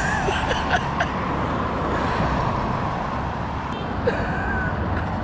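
1985 Honda Elite 150 scooter's single-cylinder four-stroke engine running steadily as the scooter is ridden around.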